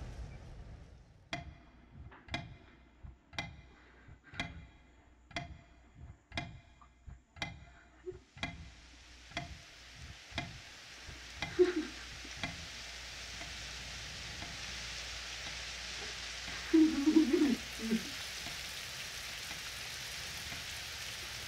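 Mechanical wall clock ticking about once a second, each tick with a slight metallic ring. The ticks are plain for about eight seconds, then go on more faintly as a steady hiss comes up. Brief low vocal sounds from a man come twice in the second half.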